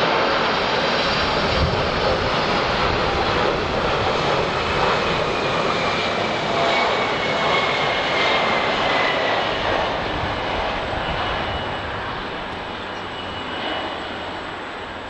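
Boeing 747-400 jet airliner on final approach, its four turbofan engines making a steady roar as it passes. A fan whine falls slowly in pitch midway, then the sound fades as the aircraft moves away toward touchdown.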